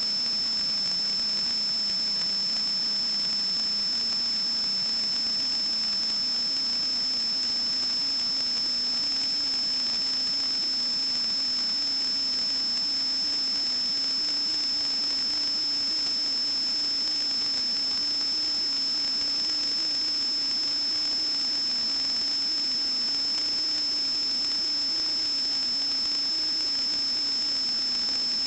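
A steady high-pitched electronic whine over constant hiss, with a lower hum that wavers and drifts slowly upward in pitch.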